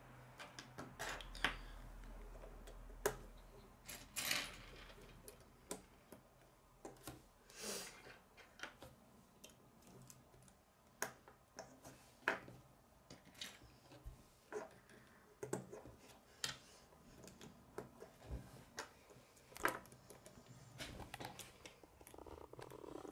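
Plastic K'nex rods and connectors clicking and snapping as they are fitted together by hand and set down on a wooden table: irregular sharp clicks, about one every second or so.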